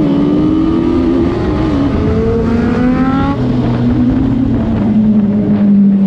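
Motorcycle engine under way. Its pitch rises until about three seconds in, drops, then runs on with a steady, slowly falling note.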